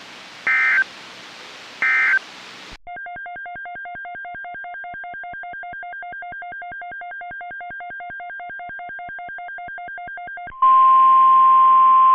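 Emergency Alert System data bursts: two short warbling end-of-message bursts over radio hiss. Then a rapid electronic beeping in two pitches, about five beeps a second, for about eight seconds. It ends in a loud steady single alert tone near 1 kHz, typical of the NOAA Weather Radio 1050 Hz warning tone.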